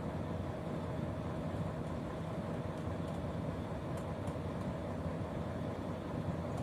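Volvo truck's diesel engine idling, a steady low rumble heard inside the cab, with a couple of faint ticks about four seconds in.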